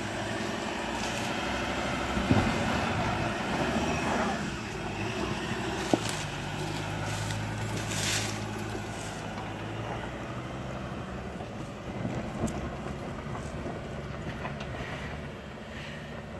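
Ford Ranger 4WD engine running steadily as the truck works over a rough off-road track, with a few sharp knocks along the way.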